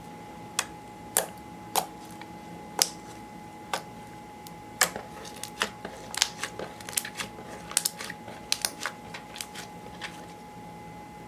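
Slime being pressed and kneaded by hand, giving sharp sticky clicks and pops: spaced out at first, then coming quickly in the middle before easing off near the end.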